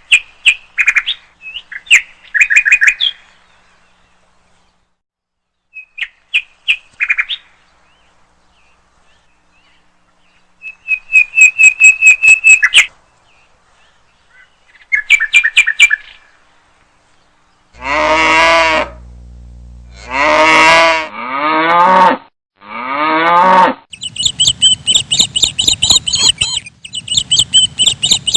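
Birds chirping and trilling in short bursts, then cows mooing four times about two-thirds of the way in, followed by a run of rapid high-pitched chirping.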